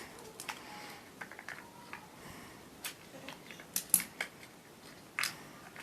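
Scissors snipping open the wrapper of a chocolate toy egg: a series of separate short, sharp snips and crinkles, the loudest about four seconds in and again just after five.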